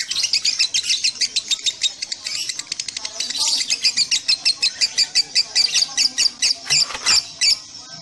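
Lovebird in ngekek, a long unbroken string of rapid, shrill chirps. It grows louder in the second half and stops abruptly shortly before the end.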